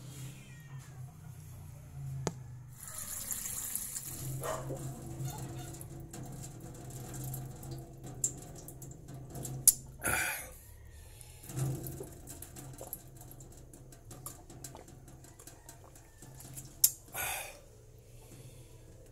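Sounds at a kitchen sink: a short hissing rush of water about three seconds in, and sharp clinks followed by brief noisy bursts around ten and seventeen seconds in, over a steady low hum. A few faint, short, high squeaks come and go.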